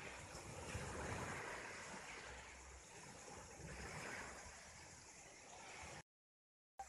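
Faint rushing of sea surf and wind in slow swells. It cuts out to silence for under a second near the end and comes back with a click.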